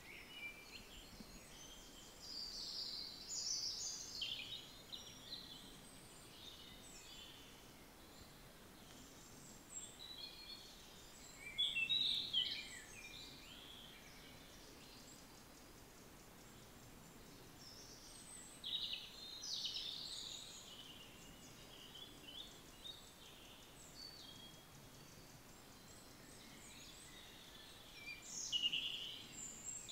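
Great tit nestlings begging in the nest box: high, rapid chirping in four bursts of a few seconds each, loudest about twelve seconds in, with a faint hiss between them.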